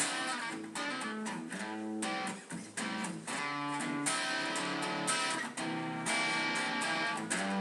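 Background music: guitar playing with a strummed, rhythmic pattern.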